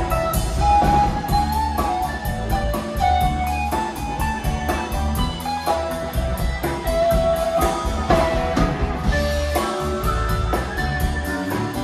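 Live blues-rock band playing an instrumental passage: drum kit, electric bass, electric guitar and keyboards, with harmonica cupped to a microphone. Long held, slightly bending lead notes ride over the steady groove.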